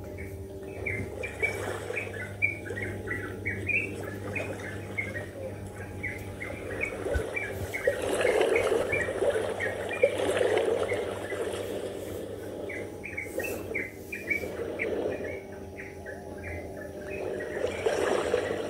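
Small birds chirping in quick runs of short, high calls, in two stretches, over a low rushing noise that swells twice.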